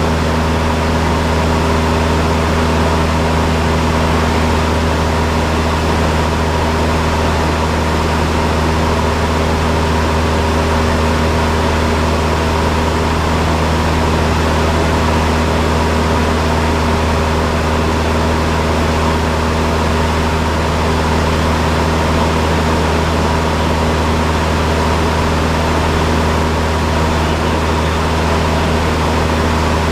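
Cessna 172's piston engine and propeller droning steadily inside the cockpit, holding a constant power setting with no change in pitch.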